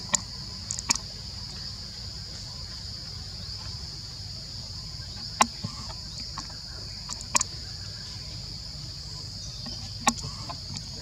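Steady high-pitched chorus of insects, crickets or cicadas, in forest, broken by about five short sharp clicks.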